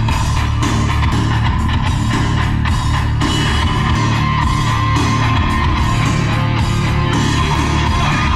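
Rock music with electric guitar and a drum beat.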